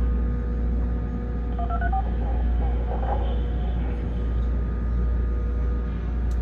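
Steady low rumble and a faint constant hum inside a tower crane operator's cab in strong wind, with a short run of electronic beeps, like radio or alarm tones, about one and a half seconds in.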